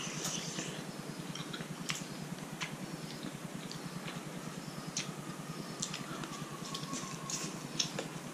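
People eating rice noodles with chopsticks from porcelain bowls: scattered small clicks of chopsticks against the bowls and slurping, over a faint steady hum.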